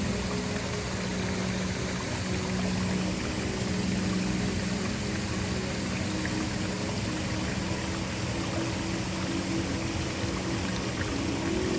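Waterfall rushing steadily, an even wash of falling water. Low sustained tones of an ambient music pad hold underneath and shift pitch near the end.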